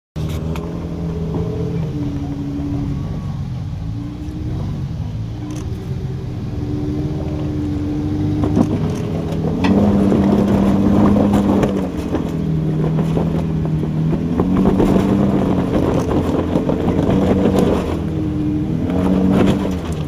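Jeep Wrangler Rubicon's engine pulling under load as it crawls up a rock ledge, its pitch holding, then rising and falling in long swells. It grows louder from about halfway, with a few faint knocks of tyres on rock.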